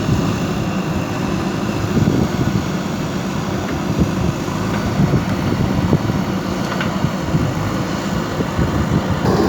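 JCB 3DX backhoe loader's diesel engine running steadily under work, with several short knocks over it.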